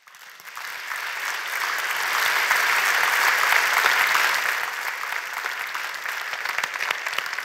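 Audience applauding: the clapping fades in, swells to its fullest about halfway through, then gradually thins out.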